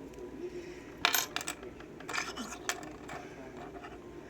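Small metal lock pins clicking and clinking against each other and a hard surface, in a few short clusters of sharp ticks, as the lock is gutted.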